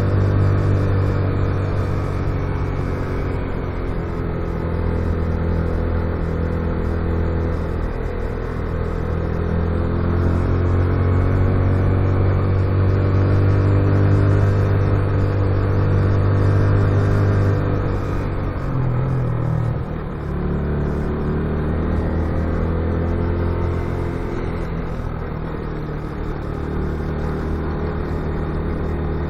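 Motorcycle engine running steadily under way, its pitch rising and falling with the throttle, with a brief dip in level about two-thirds of the way through.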